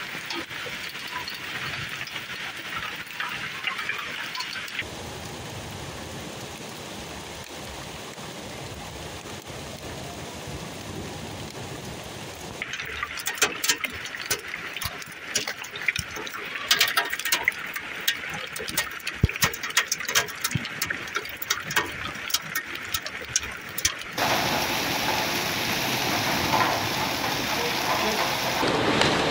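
Hailstorm with heavy rain: a steady hiss of rain falling at first. Through the middle, hailstones strike hard surfaces in many sharp clicks and knocks. Near the end comes a louder, dense downpour of hail and rain on the street.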